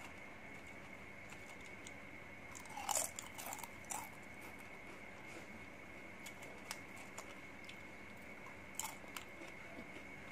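Crisp purple chips being picked out of a clear plastic tray by hand: light rustles and clicks, with a crackling, crunchy cluster about three seconds in and a shorter one near nine seconds. A faint steady high whine runs underneath.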